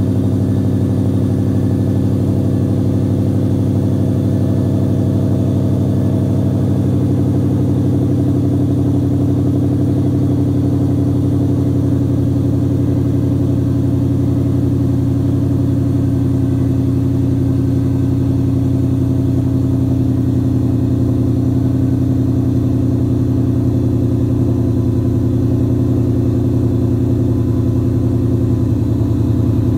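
Kenne Bell-supercharged Ford Mustang SVT Cobra's 4.6-litre DOHC V8 idling steadily through its exhaust just after a cold start. The idle sounds like an engine with an aggressive camshaft, though it has no aftermarket cam.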